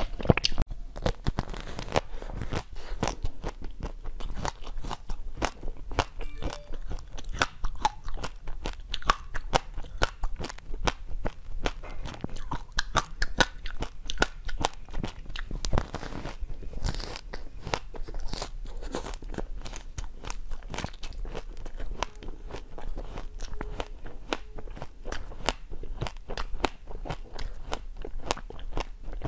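Close-miked eating: a mouthful of pomegranate arils crunched, then hard coloured sweet balls, frozen chocolates or fruit, bitten and chewed. The sound is a dense, unbroken run of sharp crunches and crackles.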